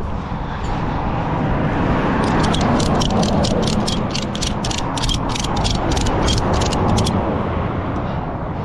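Ratchet strap being cranked tight over a trailer tarp: the ratchet's pawl clicks quickly, about four clicks a second for some five seconds, starting about two seconds in. A steady low rumble runs underneath.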